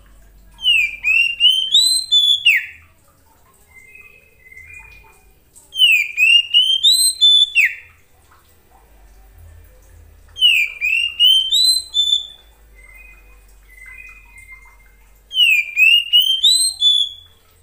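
Oriental magpie-robin (kacer) singing the same short phrase of quick rising and falling whistled notes four times, each about two seconds long and roughly five seconds apart, with softer short whistles in the gaps. This is the kacer's basic call to another magpie-robin.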